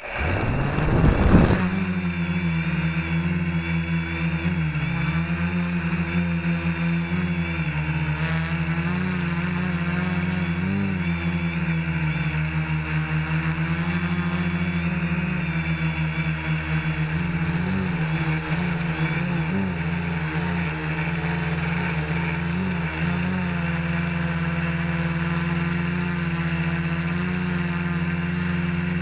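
Home-built quadcopter's electric motors and propellers, heard from the camera mounted on its frame: they spin up suddenly with a loud surge about a second in as it lifts off, then run as a steady hum with a thin high whine, the pitch wavering slightly as the throttle is adjusted in flight.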